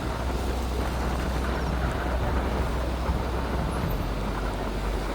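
A moving vehicle's engine and road noise: a steady low rumble with a continuous rushing hiss.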